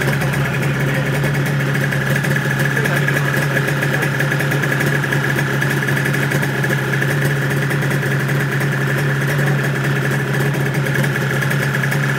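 Honda NSR250's two-stroke V-twin idling steadily, its pitch holding even with no revs.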